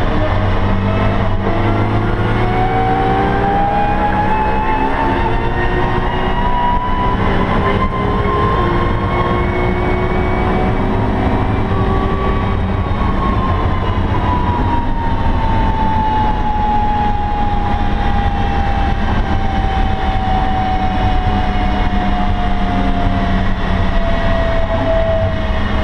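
BMW E92 M3's V8 engine heard from inside the cabin, held at speed in a high gear. Its pitch climbs slowly for about the first half, then sinks slowly through the second half. Steady wind and road noise run underneath.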